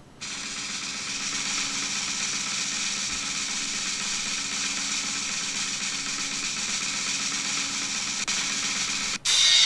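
Spin sound effect from a smartphone roulette-wheel app: a steady, even whirring noise that runs while the wheel turns, switching to a louder, brighter sound near the end as the wheel comes to rest.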